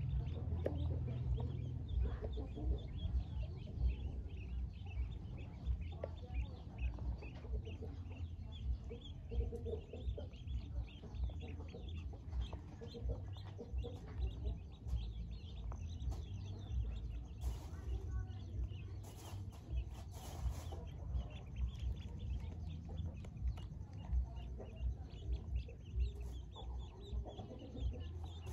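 A crowd of newly hatched Pekin ducklings peeping constantly, many short high calls overlapping, over a steady low rumble.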